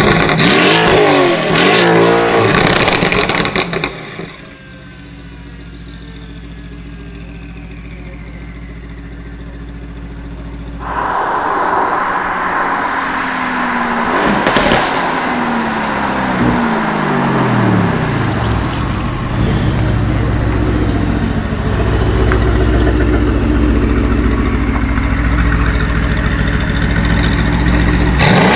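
Mercedes-AMG GT R twin-turbo V8 revved hard for several seconds, then a quieter stretch of steady low engine hum. After that it comes back loud under hard acceleration, with a sharp crack about a third of the way in and the engine pitch falling away afterward, before running on with a steady loud drone.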